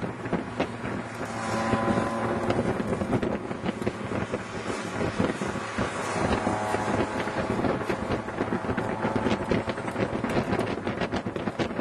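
Cars driven hard on a race circuit: engine notes rising and falling with the revs under heavy wind rush buffeting the microphone.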